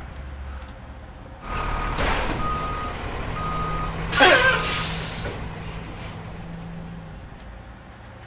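Heavy vehicle's reversing alarm sounding four evenly spaced beeps over a running engine, with a loud hiss about four seconds in.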